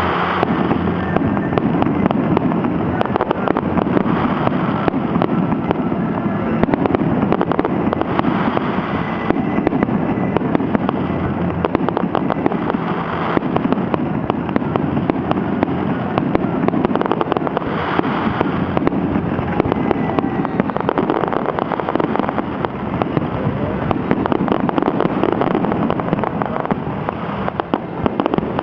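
Fireworks display finale: a dense, unbroken barrage of aerial shells bursting and crackling, many detonations overlapping.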